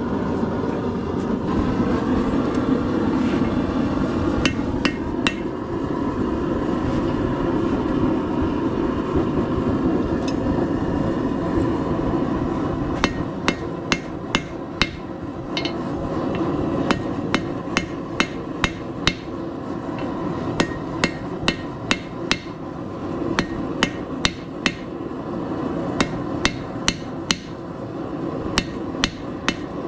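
Hand hammer striking hot steel on an anvil, drawing out a square taper: a few scattered strikes at first, then quick runs of ringing blows from about 13 seconds in. A steady rushing roar from the forge runs underneath.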